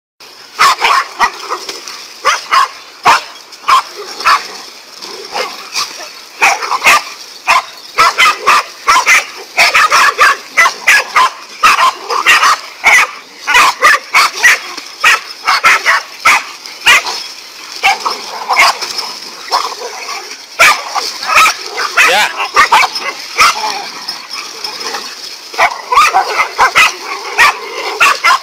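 Several small dogs barking and yipping at once in rapid, overlapping volleys, the frenzied barking of a pack attacking a snake.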